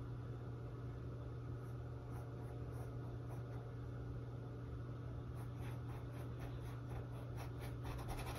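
Small paintbrush stroking and dabbing acrylic paint onto a canvas: soft scratchy strokes that come more often in the last few seconds, over a steady low hum.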